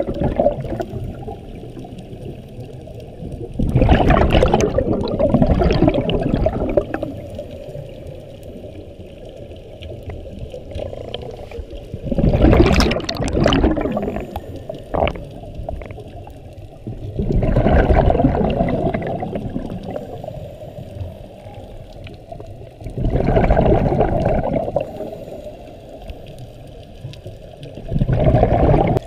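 Scuba diver breathing through a regulator underwater, heard from the camera: loud bubbling rushes of exhaled air about every five to six seconds, five in all, over a lower steady underwater rush.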